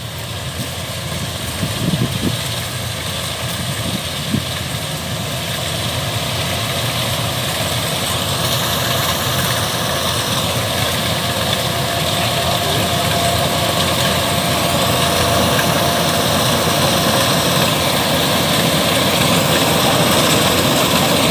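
Kubota DC-105X combine harvester running while it cuts and threshes rice: a steady diesel engine and machinery drone that grows gradually louder as it comes closer.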